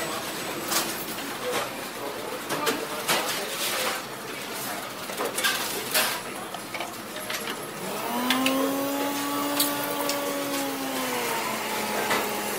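Busy restaurant kitchen ambience: steady background noise with frequent clinks and knocks of utensils and dishes, under a murmur of voices. About eight seconds in, a low hum rises slightly in pitch and falls again over about three seconds.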